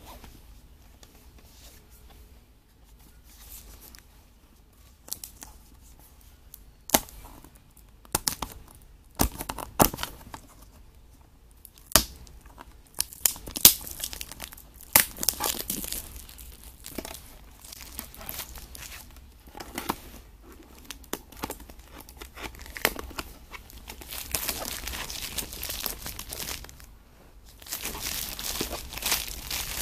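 Cellophane wrapping being torn and peeled off a hard plastic watch box, crinkling and crackling. Scattered sharp clicks and taps come first, then denser, steadier crinkling from about halfway, loudest near the end.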